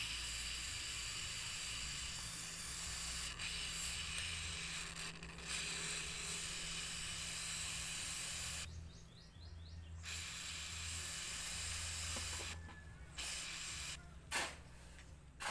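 WD-40 aerosol can spraying in long hissing bursts into a cup to fill it and soak a motorcycle oxygen sensor. The first burst runs about nine seconds; after a short pause comes a second of two or three seconds, then a few brief squirts near the end.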